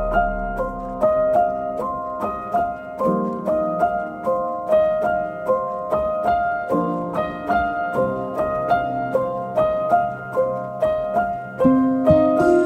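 Background music: a piano playing a gentle melody of evenly paced notes, about two a second, over held chords, with deeper notes coming in near the end.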